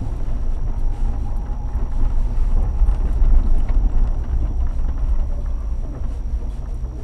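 Off-road 4x4 driving over a rough gravel and volcanic-sand trail: a steady low rumble of engine and tyres with wind buffeting a hood-mounted microphone, and scattered light knocks from the track.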